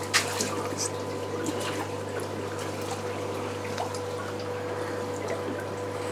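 Water sloshing and splashing in a large aquarium as a big long-handled fish net is worked through it to release a fish, with a few short sharp splashes, over a steady hum.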